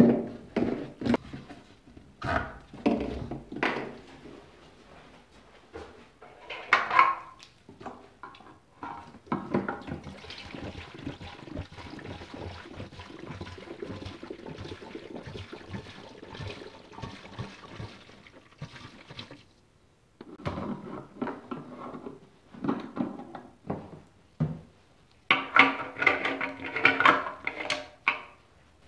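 Fuel pouring from a plastic jerry can through a flexible spout into the fuel tank of a Honda ATC 90, a steady pour lasting about ten seconds. Before and after it, the plastic can, spout and filler cap click and knock as they are handled, loudest near the end as the cap goes on.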